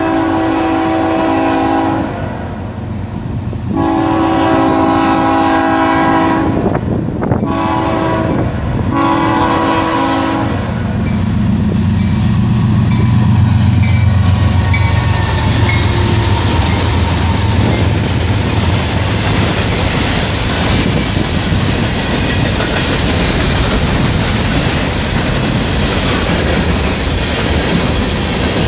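CSX freight train's air horn sounding four blasts, long, long, short, long, the standard grade-crossing signal, as the train approaches. Then the diesel locomotives pass with a deep engine rumble, followed by the steady rumble and clickety-clack of open-top freight cars rolling by.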